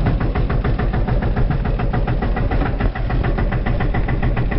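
A vehicle's engine running under load as it climbs a steep muddy track, with a fast, even chugging pulse.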